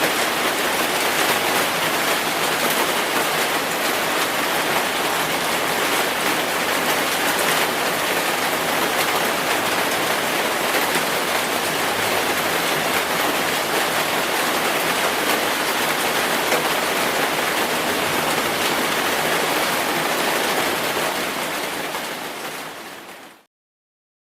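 Heavy rain falling steadily, a dense even hiss of drops. Near the end it fades quickly and cuts to silence.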